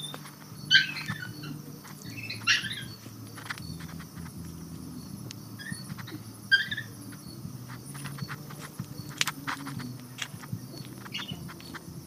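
Crickets chirping steadily at night, with several short bursts of leaves and branches rustling and a few sharp clicks as someone pushes through bushes. The loudest rustles come a little under a second in, about two and a half seconds in, and near six and a half seconds.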